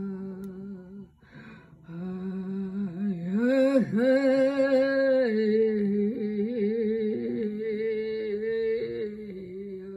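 A woman's voice humming and singing a wordless chant in long held notes, breaking off briefly about a second in, dipping in pitch and rising again near four seconds, then wavering through the later notes.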